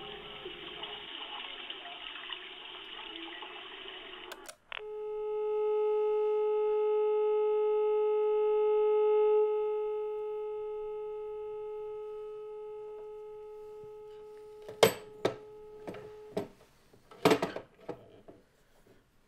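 Telephone receiver held to the ear: line hiss, a click, then a steady single-pitch dial tone for about twelve seconds that slowly fades. Several sharp clicks and knocks come near the end, and the tone cuts off among them.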